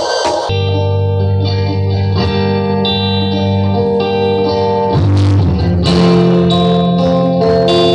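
Music with sustained guitar-like chords, shifting to new chords about half a second in and again around five seconds in.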